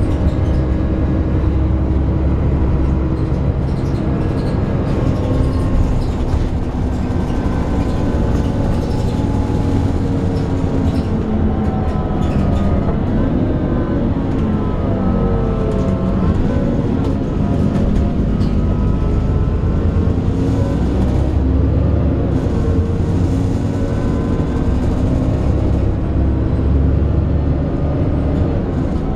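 Alexander Dennis Enviro 400 double-decker bus on a Trident 2 chassis running under way, its engine and drivetrain making a steady groaning noise. About halfway through, the pitch of the drivetrain tones rises and falls as the bus changes speed.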